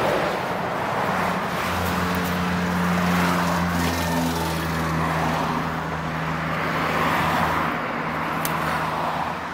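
Road traffic passing close by: tyre noise swelling and fading, with a vehicle's steady low engine drone from about a second and a half in until near the end. A short click near the end.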